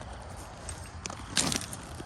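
Footsteps and loose creek stones clicking underfoot over a low steady rumble, with one sharper stone-on-stone click about one and a half seconds in.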